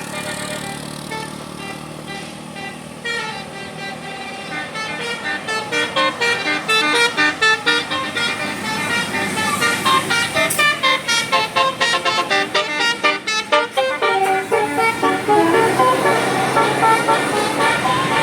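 A bus's 'telolet basuri' musical horn plays a quick tune of short, stepped notes, getting louder through the middle. A steadier noise takes over near the end.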